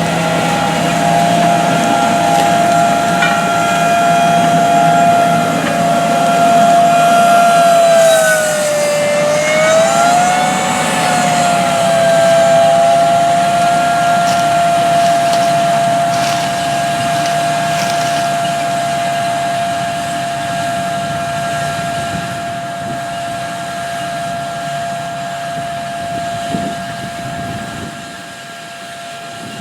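John Deere 8360RT track tractor pulling an air drill: the engine runs under steady load with a strong high whine. About eight seconds in, the whine dips in pitch and comes back up, then holds steady while the sound slowly fades.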